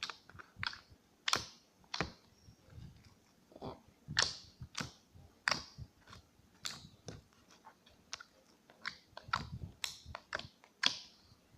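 Sticky slime being squeezed and handled by hand, giving many irregular wet pops and clicks, roughly two a second.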